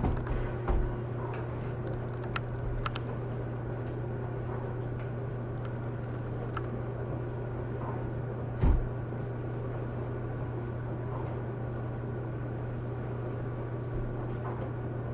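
Steady low hum throughout, with a few light clicks of a small Phillips screwdriver and screws against the laptop screen's metal bracket in the first few seconds, and a single louder knock about nine seconds in.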